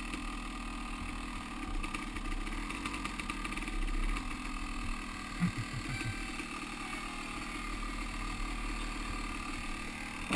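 Yamaha YZ250 two-stroke dirt-bike engine running steadily at low speed and idling as the bike rolls up and comes to a stop.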